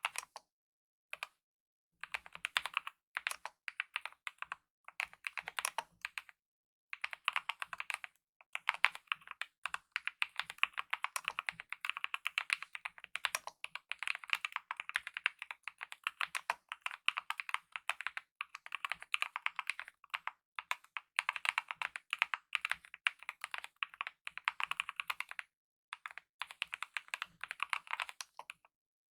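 Typing on a Kemove mechanical keyboard with lubed optical red linear switches and DSA-profile keycaps: rapid keystrokes in continuous runs, broken by short pauses, the longest about a second in.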